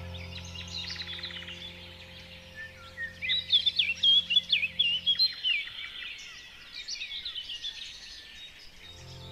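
Birds chirping and warbling in quick rising and falling calls, loudest from about three to five seconds in, over a soft sustained musical drone that fades out about five seconds in.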